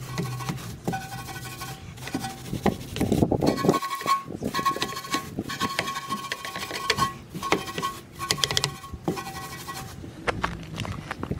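Stiff-bristled EZ Detail wheel brush scrubbing inside a wet alloy wheel: quick, repeated scratchy strokes of bristles against the wheel barrel, in bursts.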